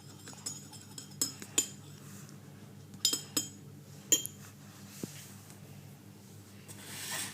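Light dish clinks, each with a brief high ring: two pairs and then a single one in the first few seconds. A soft rustling rises near the end.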